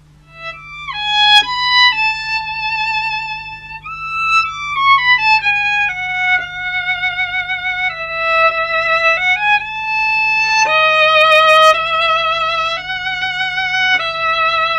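Solo violin playing a slow melody with vibrato on long held notes, sliding down in pitch about four seconds in.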